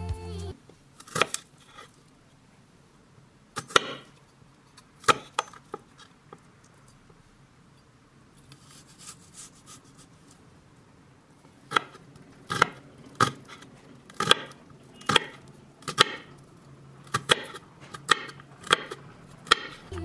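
Kitchen knife chopping a garlic clove on a wooden cutting board. A few separate sharp knocks come early, then from about twelve seconds in a steady run of chops, roughly one and a half a second.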